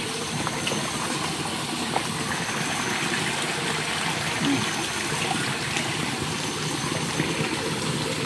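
Shallow forest stream running steadily over its bed, with a few small clicks and splashes.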